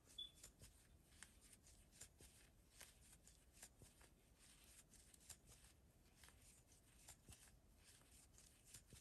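Faint, irregular soft ticks and rustling of yarn being worked with a crochet hook.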